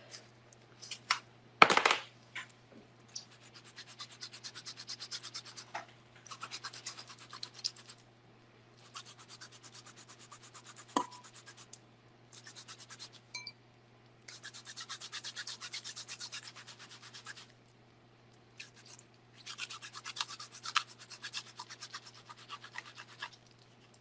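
Lemon rind rubbed up and down a handheld stainless-steel rasp grater (zester), in about six runs of quick scraping strokes with short pauses between. A sharp knock about two seconds in is the loudest sound.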